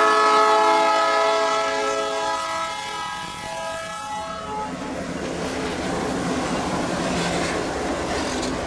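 Multi-note air horn of Canadian Pacific's vintage EMD F-unit locomotives held as a chord, fading and cutting off about four to five seconds in. After it, the passenger cars' steel wheels roll steadily over the rails.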